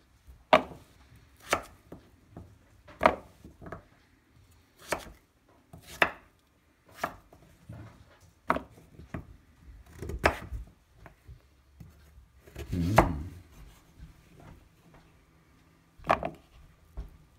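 Kitchen knife chopping through slices of raw Hokkaido pumpkin on a wooden cutting board: sharp knocks of the blade hitting the board, about one every second or so, with one louder, longer thump about 13 seconds in.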